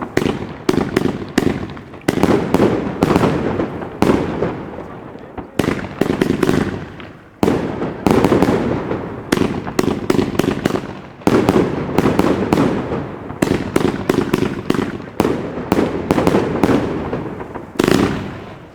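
El Gato Fiesta Grande firework battery firing: a rapid, irregular series of sharp launch shots and bursting bangs, several a second, in volleys with brief lulls.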